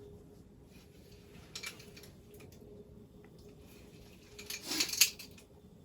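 Light clicks and clattering of small hard objects being handled, loudest in a brief burst about five seconds in, over a faint steady hum.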